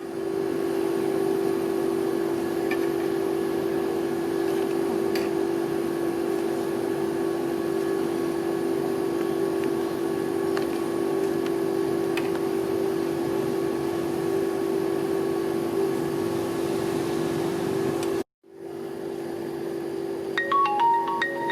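Steady electrical hum from the refrigerated cold-plate machine of a rolled-ice-cream stall, with faint taps of the metal spatulas on the plate. Near the end a short chime-like tune of bell notes begins.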